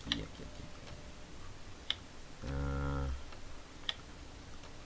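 A few sharp single clicks at a computer, about two seconds apart, as the mouse and keyboard are worked. A short, steady hum sounds once about halfway through.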